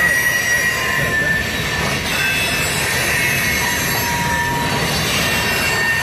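CN freight train's cars rolling past on the rails with a steady rumble, their wheels squealing in thin high tones that come and go.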